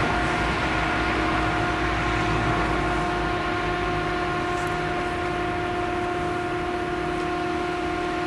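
Claas Jaguar 970 forage harvester with its V8 engine running under load, chopping sorghum: a steady drone with a continuous high-pitched whine, joined by the engines of tractors hauling silage trailers alongside.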